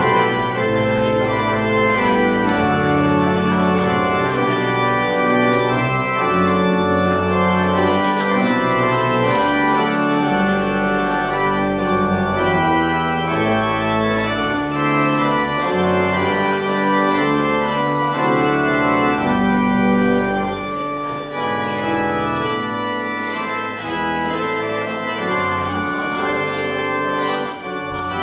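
Organ playing slow, sustained chords over a moving bass line: the closing voluntary after the benediction.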